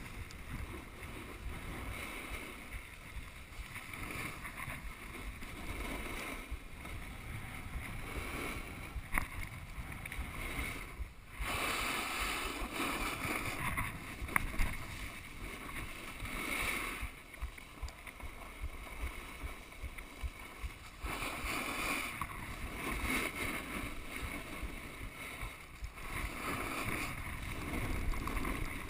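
Snowboard sliding and carving on firm, groomed snow: a scraping hiss that swells and fades with each turn, with wind rumbling on the chest-mounted camera's microphone.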